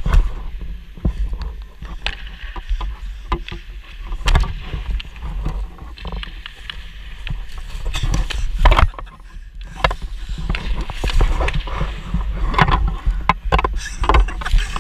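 Ice hockey goalie's skates scraping and sliding on the ice while his pads shuffle, heard up close, under a steady low rumble. Sharp knocks of puck and stick against pads and ice come throughout, the loudest about eight to nine seconds in.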